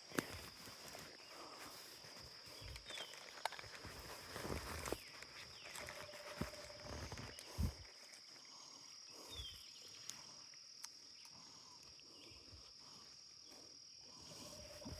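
Insects droning steadily at one high pitch, faint, with a few brief falling chirps and scattered small knocks and clicks of handling.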